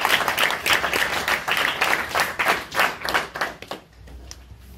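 A small audience applauding; the clapping thins out and stops a little under four seconds in.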